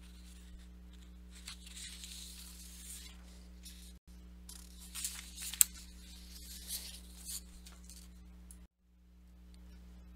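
Faint rustling and handling noises over a steady low hum, with one sharp click about five and a half seconds in. The hum cuts out for a moment about four seconds in and again near the end.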